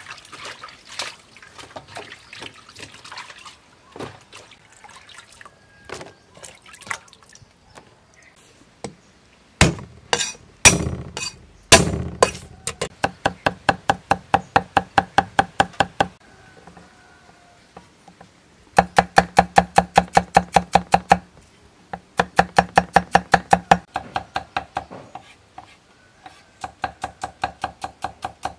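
Cleaver chopping on a thick wooden chopping block, mincing garlic. A few heavy knocks come first, then three runs of quick, even strokes, about six a second, each with a ringing tone. Before the chopping, vegetables are faintly splashed and handled in a basket of water.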